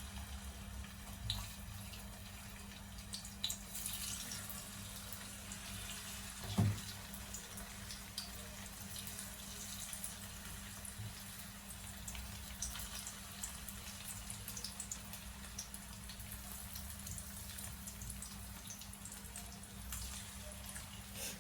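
Marinated chicken pieces shallow-frying in hot oil in a pan: a steady sizzle with small crackles and pops. A single dull knock about a third of the way in.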